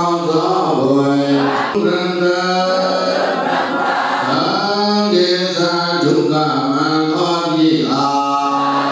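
Buddhist devotional chanting by a group of many voices in unison, holding long drawn-out notes that step up and down without a break.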